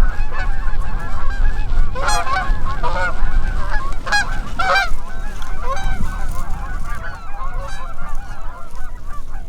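Canada goose honking: many overlapping honks, with a few loud, close ones about two to five seconds in, over a steady low rumble.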